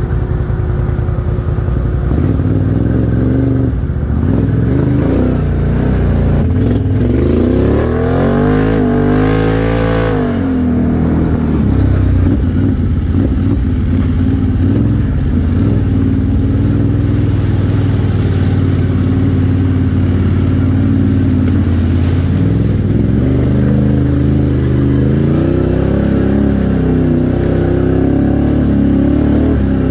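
CF Moto X10 ATV's V-twin engine running steadily on the trail. It revs up and back down about eight to ten seconds in, then does so again more gently later on.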